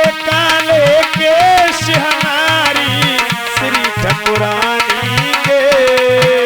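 Instrumental interlude of a Hindi devotional bhajan: a hand drum of the tabla or dholak kind beats a steady rhythm under a gliding, ornamented melody line.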